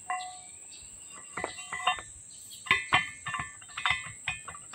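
Steel shaft clinking against the bore of an air compressor pulley hub as it is slid in and worked about: a run of sharp metallic taps that ring briefly, loudest near the end. The loose fit of the shaft in the bore is why the hole is to be sleeved so it grips again.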